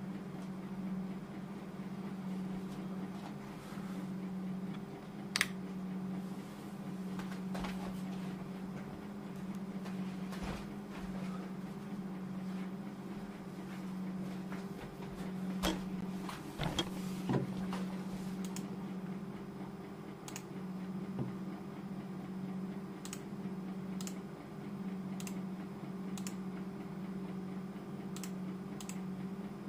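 A steady low hum with a slight regular pulse, broken by a few scattered clicks and knocks. In the last seconds there are light clicks of a computer mouse, about one a second.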